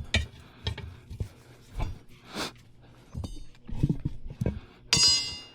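Irregular knocks and clunks of tools and a tire and wheel being handled during roadside tire work, with a brief bright metallic ringing squeal near the end.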